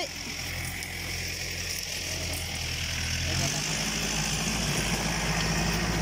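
An engine running steadily in the background as a low hum, its tone shifting about three and a half seconds in.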